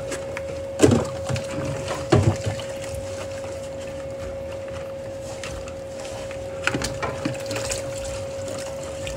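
Plastic food containers being hand-washed in a soapy sink: short knocks and clatter of plastic against the sink and dishes about a second in, at two seconds, and again around seven seconds, over a steady hum.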